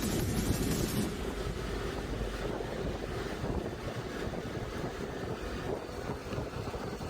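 Wind buffeting the microphone, an uneven low rumble. A brighter, louder sound cuts off about a second in.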